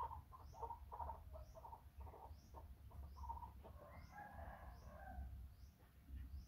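Faint farmyard sounds: a rooster crows once about four seconds in, after a run of short, quick bird calls, several a second. A faint high chirp repeats about once a second.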